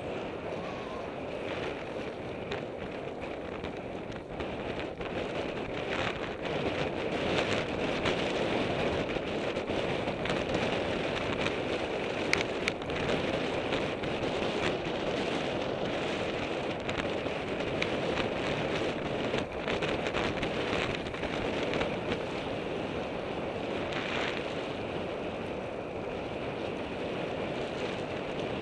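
Wind rushing over the camera microphone of a bicycle on a fast downhill run, mixed with the steady rolling noise of the tyres on the road, and scattered clicks and knocks as the bike jolts over the rough surface.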